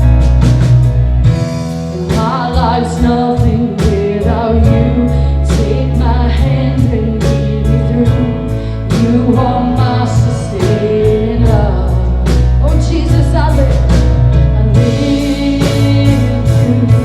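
Live worship band playing a song, with a singer's voice over a steady drum beat and bass.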